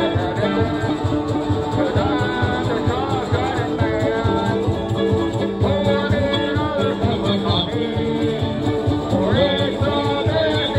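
Small acoustic country band playing live: twelve-string acoustic guitar and mandolin over a steady beat from percussion pedals, with a wavering lead line on top.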